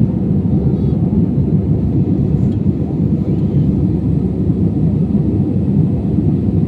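Airliner engines making a steady low rumble.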